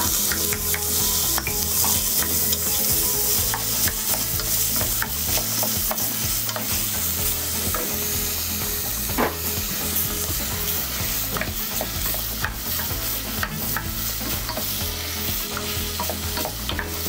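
Diced ham, onion and peas sizzling in olive oil in a hot pot, stirred with a wooden spoon that knocks and scrapes against the pot now and then.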